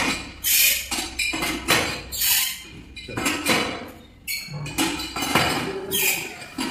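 Irregular clattering, knocking and scraping, about a dozen sharp hits in quick succession, as spawn bags are handled and an autoclave is loaded and closed, with a faint steady hum underneath.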